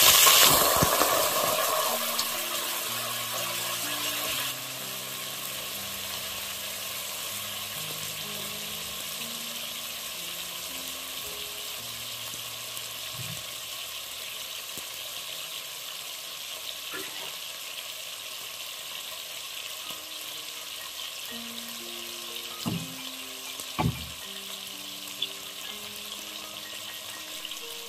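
Cauliflower florets and diced potatoes shallow-frying in hot oil in a pressure cooker. A loud burst of sizzling as the cauliflower goes into the oil settles after about four seconds into a steady sizzle, with a few sharp pops near the end.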